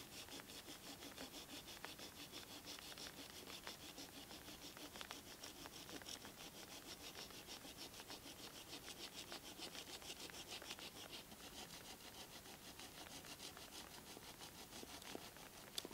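Hand saw cutting through a dry wooden pole in steady back-and-forth strokes, about three a second, with one sharp click near the end.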